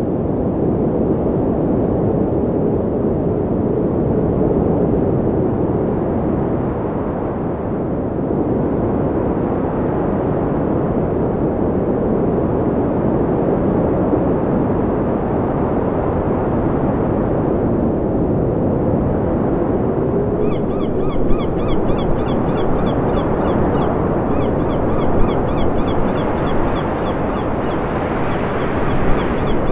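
Steady rush of ocean surf and wind. About two-thirds of the way through, a bird joins in with rapid, repeated high chattering calls.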